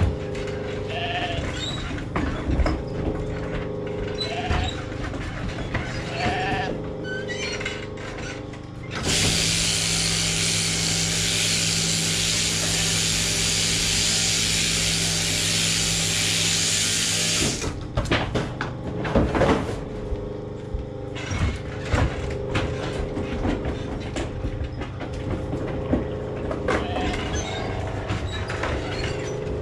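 Sheep bleating a few times in a shearing shed over the steady hum of the shearing machinery. Midway, a loud steady rushing noise lasts about eight seconds.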